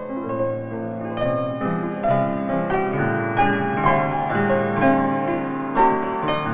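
Background piano music: a gentle melody of struck notes, several a second.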